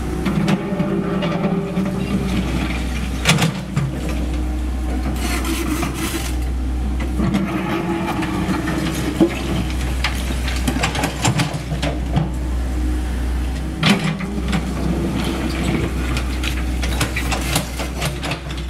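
Komatsu PC78US mini excavator's diesel engine running steadily under load as its bucket scrapes and drags through brick and concrete rubble, with a few sharp knocks of debris striking, the loudest about a third of the way in, halfway and three quarters of the way through.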